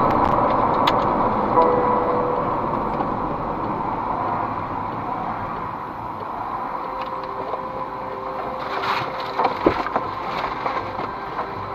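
Road and tyre noise heard inside a moving car, fading steadily as the car slows to a stop, then a few short knocks near the end.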